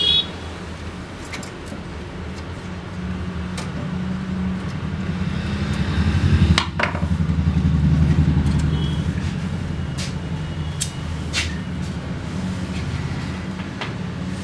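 Sharp clicks and knocks of screws, tools and plastic parts being handled while a laser printer is taken apart, with a louder clack about halfway through, over a steady low hum that swells in the middle and eases off.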